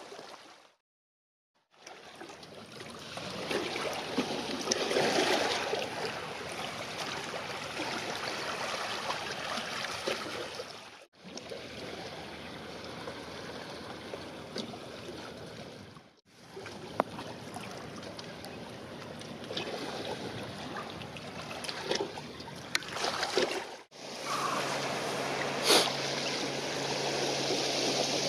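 Small waves lapping and washing at the water's edge, a steady, even water noise. It comes in several short takes, with a second of silence near the start and sudden breaks about eleven, sixteen and twenty-four seconds in. In the last take a low steady hum runs under the water, with one sharp click.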